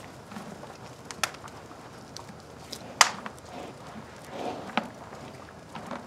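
Wood fire crackling in a stone fireplace, with a few sharp pops; the loudest comes about halfway through. A soft, low sound about three-quarters of the way through, likely the horse breathing or chewing hay.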